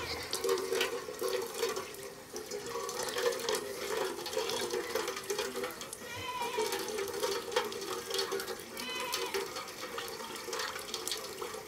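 Water running and splashing steadily, as when filling or washing in a basin. Two brief high calls sound in the background, about six and nine seconds in.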